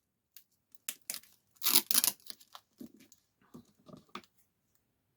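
Sticky tape being pulled off the roll and torn in several short, irregular pulls, loudest about two seconds in; it is being laid over the cracked glass of a tablet screen.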